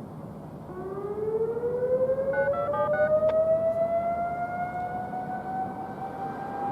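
Outdoor warning siren starting its test, coming in about a second in as one steady tone that climbs slowly in pitch. It is not loud at all, which the recorder puts down to two of the siren's drivers not working.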